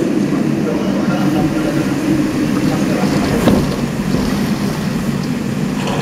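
Typhoon wind and heavy rain heard from indoors through a window: a loud, steady, unbroken noise.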